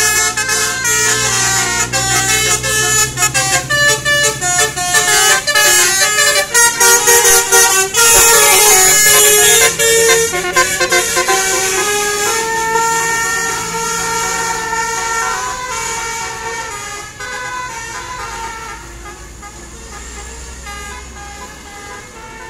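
Bus 'telolet' multi-tone air horn playing a tune of stepped, held notes over the engine's low rumble. It is loudest about eight to ten seconds in, then fades away.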